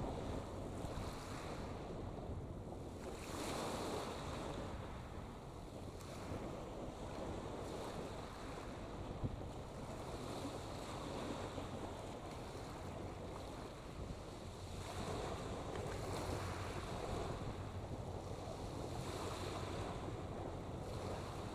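Wind on the microphone and water washing, swelling a few times, over a steady low hum.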